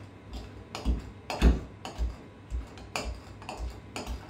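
Cocktail muddler smashing mint and cucumber in a shaker tin, a dull thump about twice a second.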